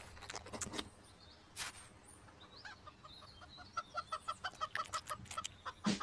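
A fast run of short pitched calls, about five a second, in the last two seconds, after a few scattered knocks and taps.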